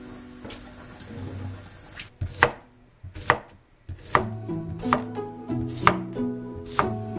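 Kitchen knife slicing a cucumber on a plastic cutting board: about six sharp knocks of the blade hitting the board, roughly one a second, starting about two seconds in.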